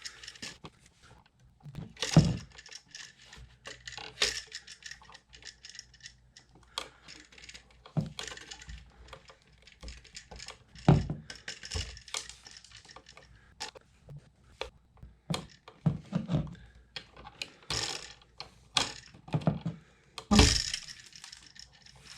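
Hand wire strippers clicking and snapping as insulation is pulled off 14-gauge copper house wire, with scattered handling clicks and taps and a few heavier knocks.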